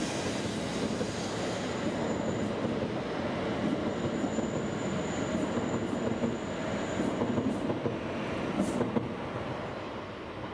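E7 series Shinkansen train rolling past as it pulls out of the station: a steady rumble of wheels on rail with scattered clicks, and a thin high squeal for a few seconds in the middle. The sound fades near the end as the train draws away.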